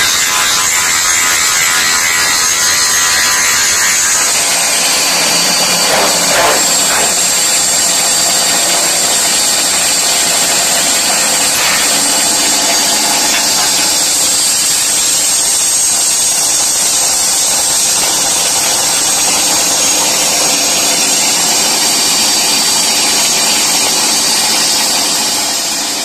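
Broom-handle making machine running, its motor-driven cutter head shaving a wooden stick as the feed rollers push it through: a loud, steady mechanical whine whose tone shifts about four seconds in.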